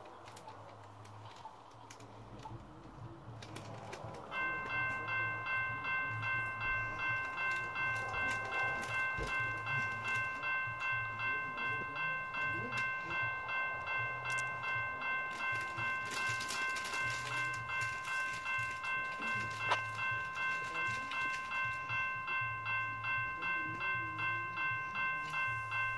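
Railroad crossing bell starts ringing about four seconds in and keeps up an even, steady rhythm of just under two strikes a second.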